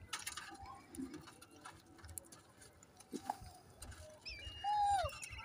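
Faint ticking and scratching of monkeys picking grain off a ridged metal tray, with chirping in the background. Near the end comes one short, louder high call that drops in pitch as it ends.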